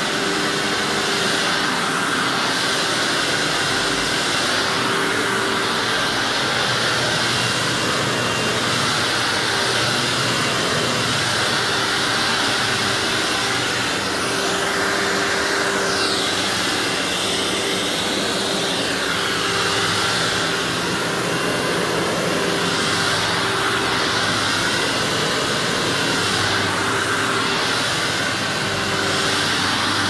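Upright vacuum cleaner running on carpet: a steady motor drone with a constant whine, swelling and easing a little every couple of seconds as it is pushed back and forth.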